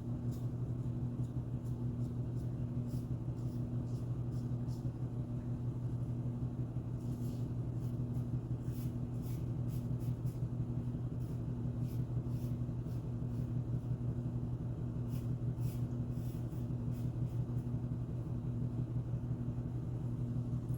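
Steady low electrical or fan hum, with faint short scraping strokes of a 1961 Gold Aristocrat adjustable safety razor cutting stubble, most frequent in the middle.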